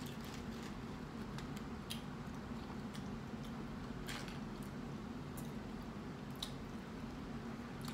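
Quiet food-handling sounds of a giant burrito's flour tortilla and fillings being pulled apart by hand, with scattered small crackles and clicks. A steady low hum runs underneath.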